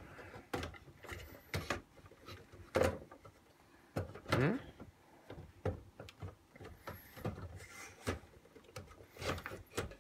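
Plastic speaker housing of a Victor Clavia RC-G15MD boombox being pressed and fitted onto the body by hand: irregular clicks, knocks and scrapes of plastic on plastic, with a brief squeak about four seconds in.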